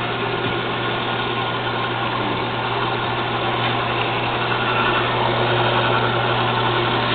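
JET 5" x 6" horizontal/vertical band saw running steadily with no cut under way: an even motor hum under the whirr of the moving blade.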